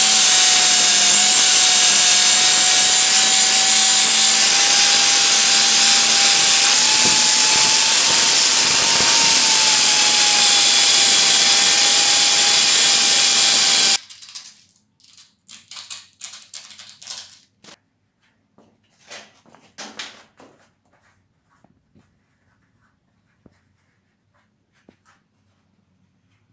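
Angle grinder with an abrasive disc running under load, grinding rust off a steel scissor blade: a loud, steady whine that wavers a little in pitch. It cuts off suddenly about halfway through, leaving only a few brief scratchy handling sounds.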